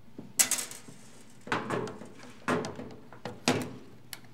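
Several sharp clicks and knocks at irregular intervals as screwdrivers and the projector's plastic and metal parts are handled on a metal workbench while screws are taken out. The loudest knock comes about half a second in.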